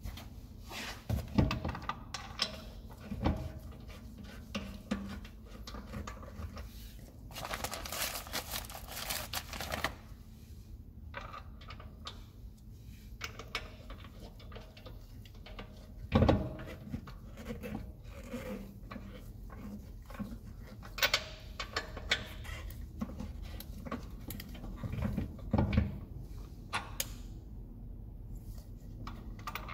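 Small metallic clicks, clinks and rattles of new wheel bolts and a socket being turned by hand into a BMW 750i's wheel hub, with a few sharper knocks of metal on metal. A stretch of hissing noise sits in the middle.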